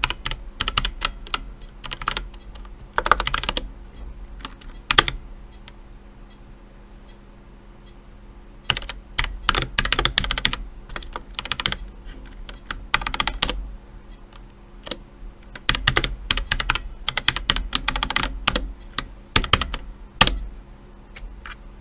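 DEXP Tanto RGB mechanical keyboard with Outemu Red linear switches and lubed stabilizers being typed on in quick bursts of keystrokes, with a pause of a few seconds about a third of the way in.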